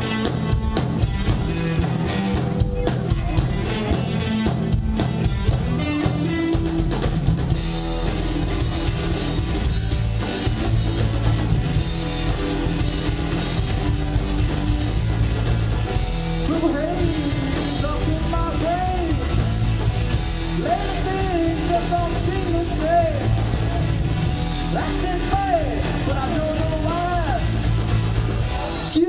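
Live rock band playing electric guitars and a drum kit, with cymbals coming in strongly about a quarter of the way in. In the second half a lead guitar plays a melody of bent notes over the band.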